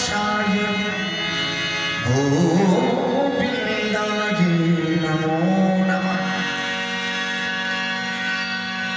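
Indian devotional song: a man singing long held notes that bend and glide, over steady sustained instrumental accompaniment.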